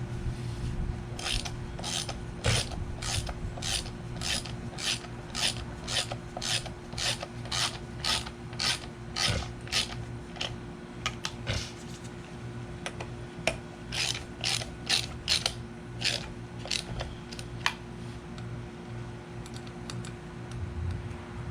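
Ratchet wrench being worked back and forth, its pawl clicking in evenly spaced strokes about two a second, with a short pause about halfway through, as bolts on the compressor are run down.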